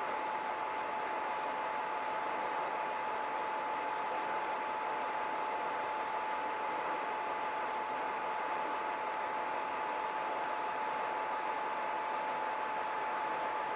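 Steady hiss with a constant mid-pitched hum tone running under it.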